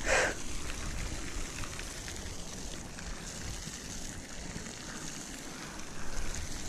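Steady hiss of falling water drops on the pond surface, with a brief downward swish right at the start.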